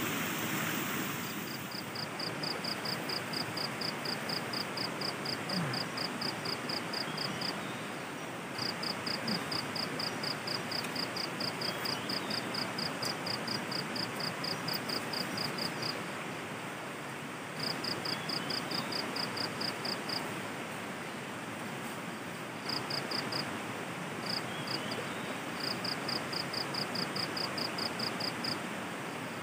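An insect calling in rapid, evenly spaced high pulses, about five a second, in trains several seconds long with short breaks, over a steady rush of flowing river water.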